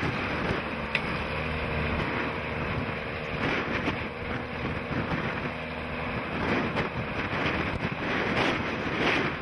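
Large farm tractor's diesel engine running steadily, standing by to tow a car stuck in mud, with wind buffeting the microphone.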